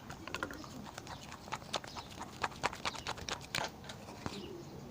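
Glue-and-activator slime being mixed, giving a run of irregular sticky clicks and pops, several a second.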